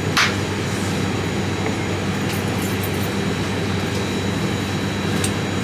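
Steady hum of an airliner cabin's ventilation with constant low tones. Just after the start comes a short swish of a quilted nylon puffer jacket being swung on, with a few faint clicks later.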